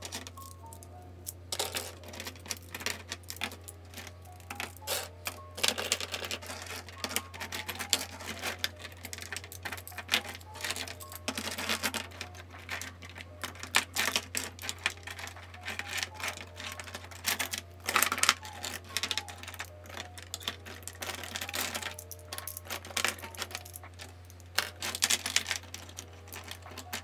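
Plastic pens and highlighters being handled and sorted, with irregular, frequent clicks and knocks as barrels and caps strike each other and their holders. Soft background music and a steady low hum underneath.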